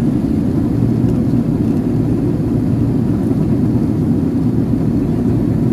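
Steady low rumble of an Airbus A380 in flight heard inside the passenger cabin: jet engine noise and airflow over the fuselage.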